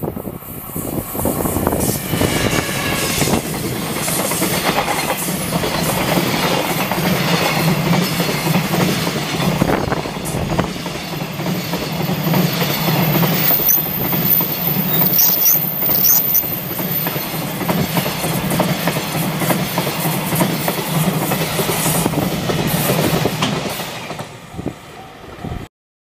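A long freight train of container wagons passing at speed, close by, with a continuous rumble of wheels on rails. The noise holds for most of the time and falls away about two seconds before the end.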